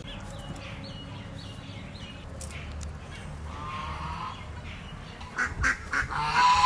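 Birds calling around a village yard: a quick run of short high chirps at first, then lower honking poultry-like calls, with a few sharp knocks in the last second and a half.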